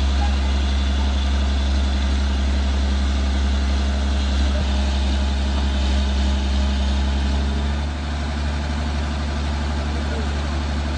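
Tata Hitachi EX110 hydraulic excavator's diesel engine running steadily with a deep hum, its note easing slightly about eight seconds in.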